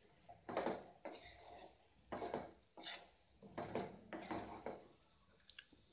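Wooden spatula scraping and knocking against a non-stick pan while stirring and tossing fried rice, in repeated strokes roughly one a second that grow weaker near the end.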